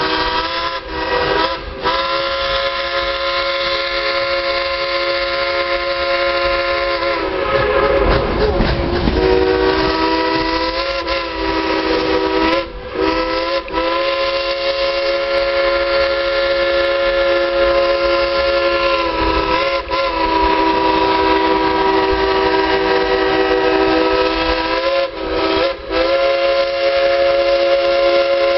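Baldwin steam locomotive's chime whistle played as a song: long held chords of several tones that shift in pitch from note to note, with short breaks between notes and a wavering, sliding stretch about eight seconds in.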